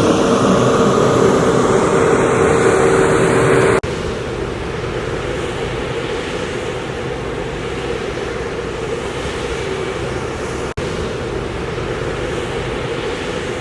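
Steady engine and machinery noise of road-construction equipment running, with a steady hum in the first few seconds. The sound cuts abruptly twice, about four and eleven seconds in, between three stretches of similar steady noise.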